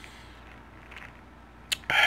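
Quiet drinking from a plastic sports water bottle, then a sharp click near the end as the bottle comes off the mouth and a loud breath out begins.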